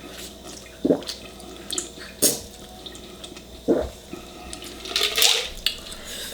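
Close-up wet eating sounds: a person chewing and sucking on food, with sharp wet smacks about once a second.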